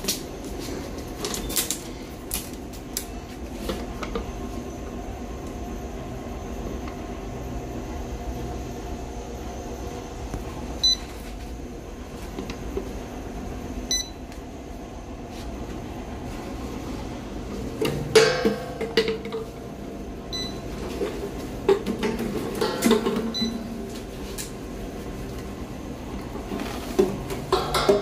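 Small automatic bottle MRP batch-coding machine running with a steady motor hum and a few short high beeps, with bursts of clattering about two-thirds of the way in and again near the end.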